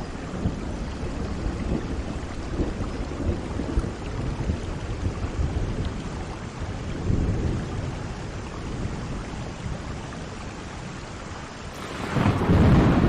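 Steady heavy rain with low rolling thunder, the rumble swelling and turning much louder near the end.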